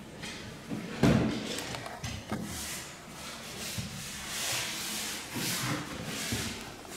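Solid wood parquet boards pushed into adhesive and knocked into place on a plywood subfloor: one sharp wooden knock about a second in, a lighter click, then several seconds of boards scraping and rustling as they are pressed down.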